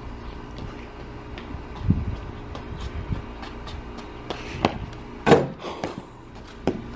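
Scattered light knocks and scuffs over a steady low background, with a low thump about two seconds in and two sharper, louder knocks about four and a half and five seconds in.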